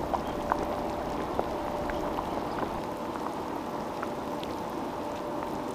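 Broth boiling in a large iron wok with beef spine pieces stewing in it: a steady bubbling with scattered small pops.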